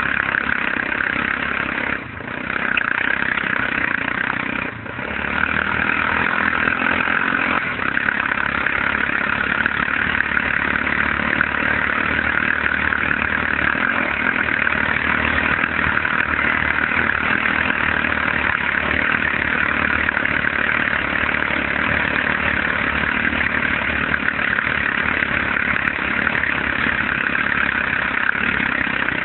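ATV engine running steadily under way, with two brief dips in loudness about two and five seconds in.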